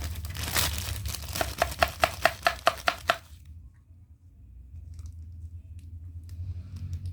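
Plastic packaging being handled: crinkling and rustling with a quick run of about eight sharp, evenly spaced rasping strokes, stopping after about three seconds, followed by a few faint light clicks.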